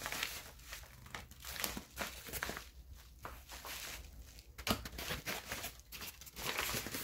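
Padded mailer envelope crinkling and rustling in irregular crackles as it is handled and opened to take the item out.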